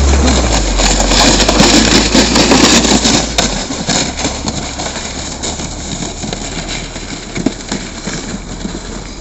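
Car engine and tyres running over snow, a low engine note dropping in pitch as the car slows; after about three and a half seconds the sound falls away to a quieter, fading rumble.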